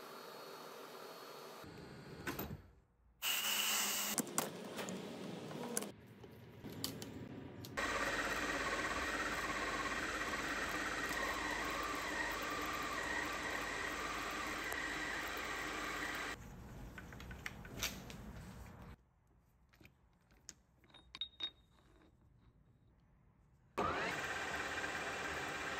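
Metal lathe running and cutting, heard as a string of short clips whose sound changes abruptly at each cut: an M8 tap threading a hole in a spinning steel part, and a turning tool cutting a steel bar. A much quieter stretch with a few faint ticks comes about three quarters through.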